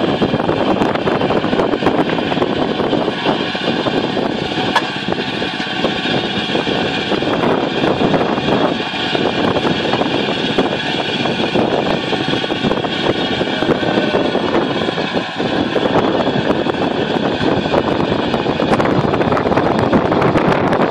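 Engine running steadily with a steady whine over a loud rushing noise.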